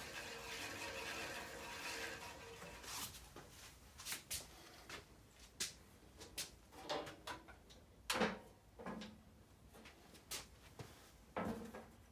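Dewalt 876 bandsaw being handled during a blade change: at first a steady rubbing as a wheel is turned by hand, then scattered clicks and knocks as the wheel covers are closed and fastened. The loudest knocks come about eight seconds in and shortly before the end.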